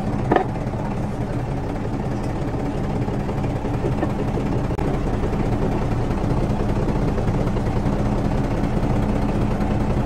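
An engine running steadily at idle, a constant low drone with a held hum, and a light knock just after the start.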